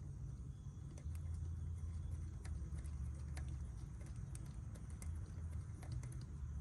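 Light, irregular metallic clicks and taps of hand tools and hardware being handled while a starter's mounting bolts and nut are fitted, over a steady low hum.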